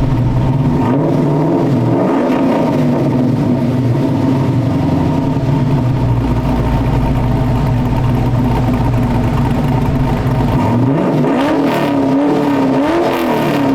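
LS V8 in a swapped Holden VH Commodore running loud at fairly steady revs, its pitch wavering up and down from about eleven seconds in.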